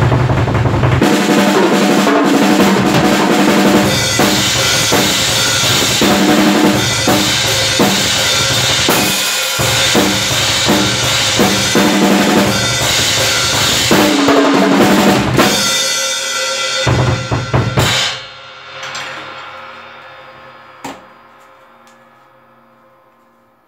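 Acoustic drum kit played fast and hard in a thrash style, with bass drum, snare and crashing cymbals. The playing stops about eighteen seconds in, and the cymbals ring on and fade out, with one short knock a few seconds later.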